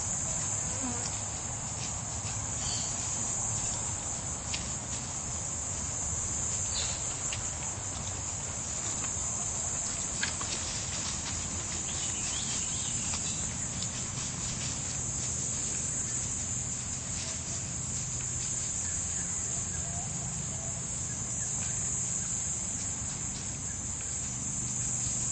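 Steady high-pitched drone of an insect chorus, with scattered crackles and scratches of dry leaf litter as dogs dig and nose through it.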